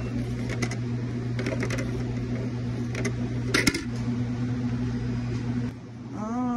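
Metal serving tongs clicking and clattering against a steel condiment pan and a plastic clamshell tray, several sharp clicks with the loudest about three and a half seconds in, over a steady low electrical hum. Near the end a person starts humming.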